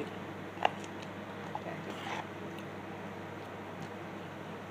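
A fork clicks sharply once against a plastic bowl about half a second in, then noodles being lifted give a faint rustle and a few small clicks, over a steady low hum.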